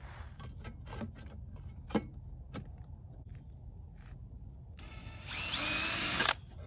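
Cordless drill driving a bit into a steel plate: a few light knocks of handling, then the drill runs hard for about a second and a half near the end and cuts off suddenly.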